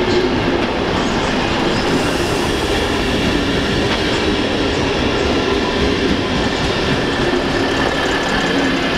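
SN84 diesel railcar set rolling past as it pulls into the station, its diesel engine running and its wheels clacking over the rail joints and points. The sound stays steady and loud throughout.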